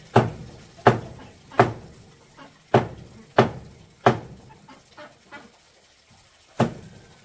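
Knife chopping meat on a wooden cutting board: about seven sharp, heavy chops roughly every 0.7 s, with lighter taps between, then a pause before a last chop near the end.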